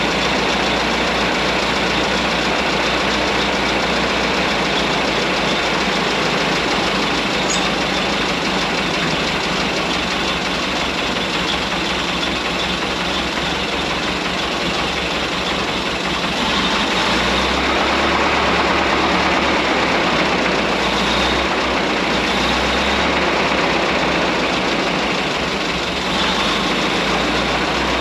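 Old White dump truck engine running steadily, a little louder and deeper about two-thirds of the way through.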